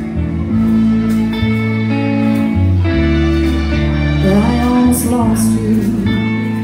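Live band playing: electric guitar chords over steady low bass notes, with drums. A woman's lead vocal comes in about four seconds in.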